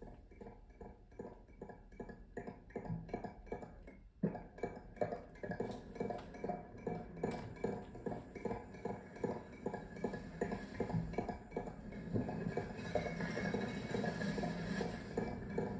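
Cassette tape loops playing on Walkmans: a repeating pattern of short strokes, about three or four a second, over a steady tone. A sharp click comes about four seconds in, and more loops join so that the sound grows denser and louder from about twelve seconds on.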